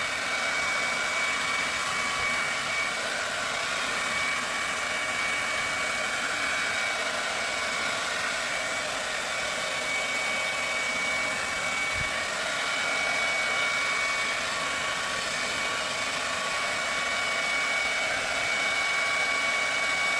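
Hair dryer running steadily, a constant blowing hiss with a thin high whine, drying the wig.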